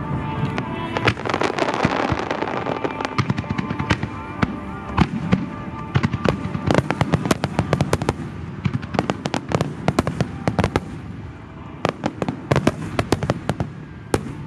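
Fireworks display: many sharp bangs and crackles of aerial shells bursting in quick succession, with music playing along. The bursts are densest in the middle and thin out for a moment about three-quarters of the way through.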